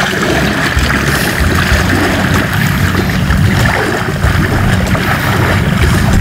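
Water splashing and sloshing in shallow water, over a steady low rumble of wind on the microphone.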